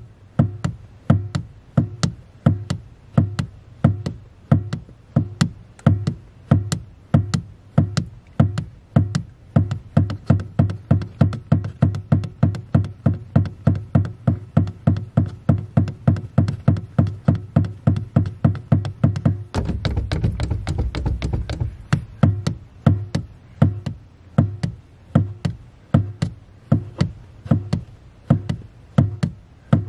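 Car engine revved in quick short blips, about two to three a second, as the accelerator pedal is pumped in rhythm, each blip starting with a sharp tap; about two thirds of the way through, one longer held rev of about two seconds.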